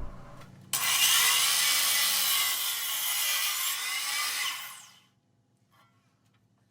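Power saw cutting through a pine board: a steady, loud cut that starts suddenly about a second in and dies away after about four seconds.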